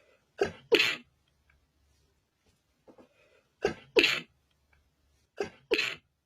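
A person sneezing three times, each sneeze a quick catch of breath followed by a sharp blast. The first comes about half a second in and the last two come closer together: a sneezing fit set off by dust.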